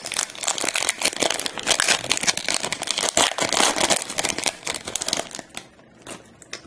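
A trading-card pack wrapper being torn open and crumpled by hand, a dense crinkling crackle that thins to a few scattered crackles near the end.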